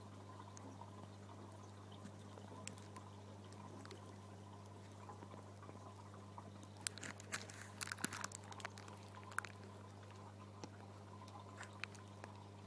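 Faint aquarium water trickling and dripping over a steady low hum, with a cluster of small clicks and crackles about seven to nine seconds in.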